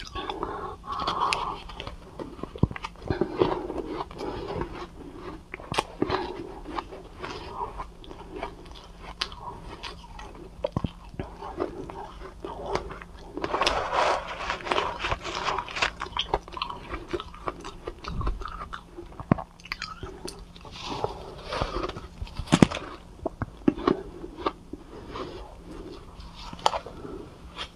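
Close-miked biting and chewing of soft shaved 'cotton' ice, a run of irregular crisp crunches and wet mouth crackles as each spoonful is eaten.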